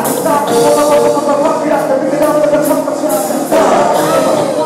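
Live pop band playing on stage, with drums, electric guitars and keyboard under singing vocals.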